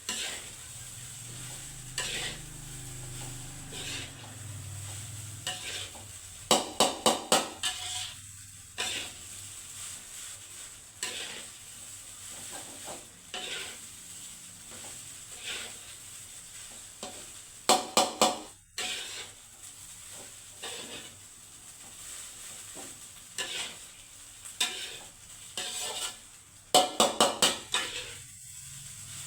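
Nasi goreng (fried rice) being stir-fried in a pan: a spatula scraping and turning the rice over a steady sizzle. Three times there is a quick run of four or five knocks of the spatula against the pan.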